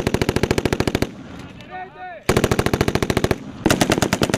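Belt-fed machine gun firing three bursts in quick succession: a burst ending about a second in, a second burst of about a second, and a third starting near the end and running on.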